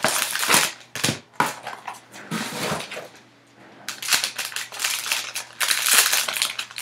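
A foil trading-card pack wrapper is pulled from its cardboard box, then crinkled and torn open by hand: sharp, irregular crackling. The crackling thins out briefly past the middle, then comes back denser near the end.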